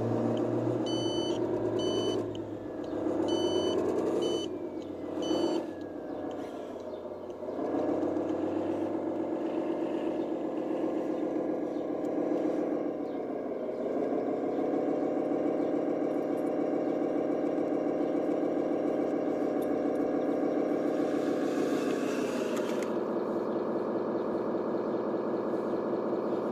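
Remote-control scale Iveco 8x8 truck's simulated engine sound revving up and down, then running steady, dropping to a lower note about 22 seconds in. Repeated high beeps sound in the first few seconds.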